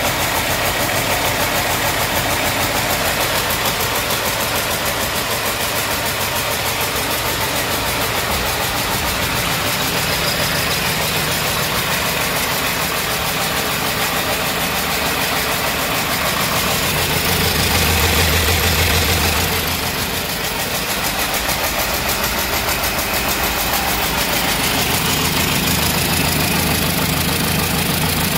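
A 1996 Cummins 6BT 5.9-litre straight-six turbo diesel running steadily on a test run, with a brief swell in level about two-thirds of the way through.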